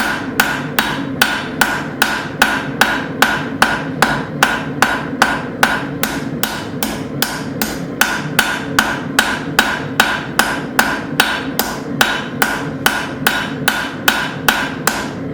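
Cross-peen hammer striking hot half-inch square steel on an anvil in a steady rhythm of about two and a half blows a second, each blow ringing, as the top of a split cross hook is drawn out. A steady rushing noise runs underneath.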